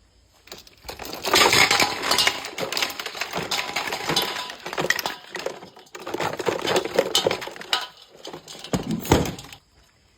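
Hard objects clattering and clinking together in dense, rapid clicks, in three stretches: a long run from about a second in, a second run after a short pause at about six seconds, and a brief burst near the end before it stops.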